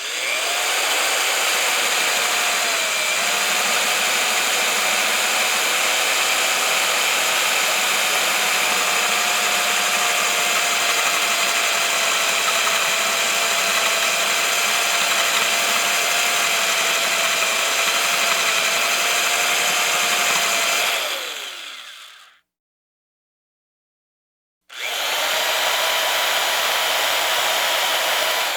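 Electric hammer drill motor running at steady speed with a high whine. Near the end it winds down with a falling pitch and stops, then after a brief pause starts up again at a higher pitch.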